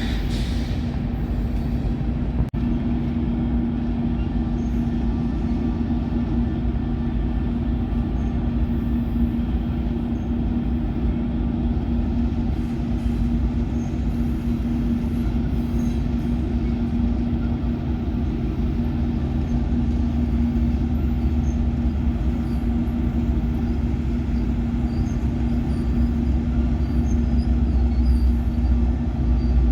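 Diesel train running steadily: a low rumble with a steady hum, growing a little louder near the end.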